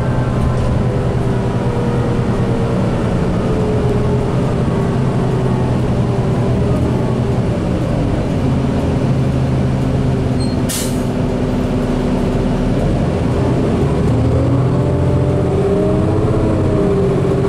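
Cabin sound of a 2008 New Flyer D40LFR diesel bus under way: a steady engine and drivetrain drone with whining tones that fall in pitch through the first several seconds and rise again from about fourteen seconds in. A short hiss sounds about eleven seconds in.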